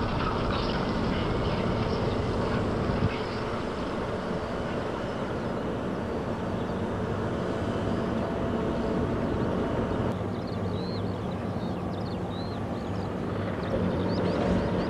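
O&K bucket-wheel excavator 258 digging into the mine face: a steady mechanical drone with a low hum running throughout.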